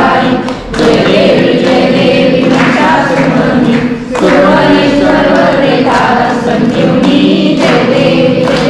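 A group of worshippers singing a Marathi devotional aarti together, line by line, with brief breaks between lines about a second in and again about four seconds in.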